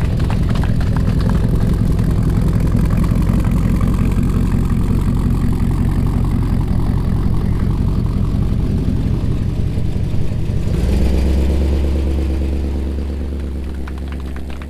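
A street rod's engine idling loudly with a fast, choppy exhaust pulse. About eleven seconds in the car pulls away: the exhaust note drops lower and fades as it drives off.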